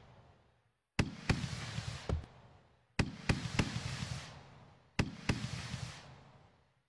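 Simulated fireworks sound effects from Finale Fireworks display software: three sharp bangs about two seconds apart, each followed by a few smaller pops and a fading crackle.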